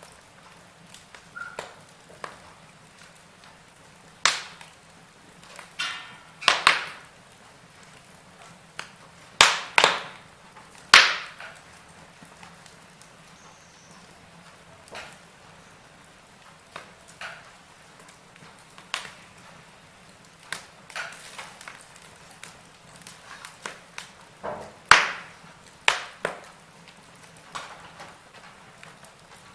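Wood fire crackling in a fireplace: irregular sharp pops and snaps, a handful of them much louder than the rest, over a faint steady background.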